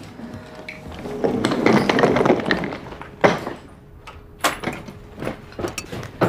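Household handling noises: a loud rushing scrape lasting about two seconds, a sharp knock, then scattered light clicks and taps.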